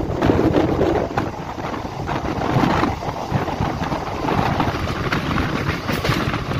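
Wind rushing over the microphone held out of a moving passenger train, over the steady rumble of the coach running along the track.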